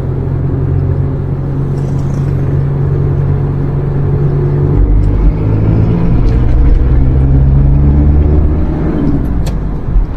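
Car engine and road rumble while driving slowly in traffic: a steady low engine hum whose note shifts a little about halfway through.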